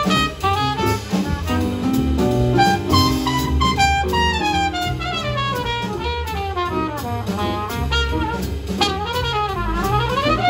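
Live small-group jazz: a trumpet plays the lead line over acoustic piano, upright bass and drum kit. The melody moves in quick falling runs midway through, then dips and climbs again near the end.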